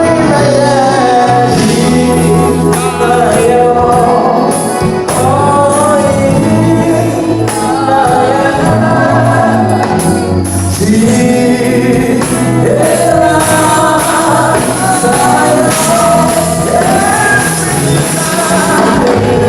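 Gospel praise music: singing voices carried over a band with held bass notes and percussion.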